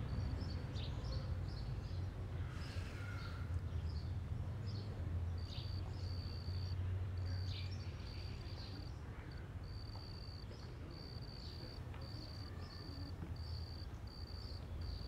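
Outdoor ambience: a high, thin insect trill in short repeated pulses, with scattered bird chirps in the first half, over a steady low rumble.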